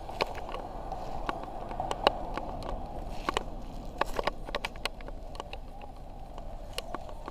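Eachine E010 micro quadcopter's brushed motors and propellers buzzing in flight, a steady hum that wavers slightly in pitch, with scattered light clicks.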